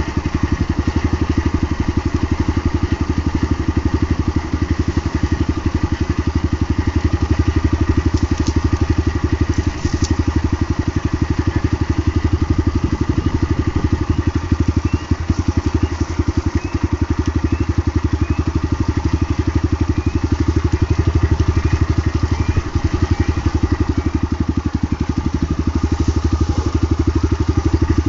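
Small trail motorcycle's engine idling steadily in neutral as the bike coasts downhill on a dirt track, with the tyres crunching over the ground.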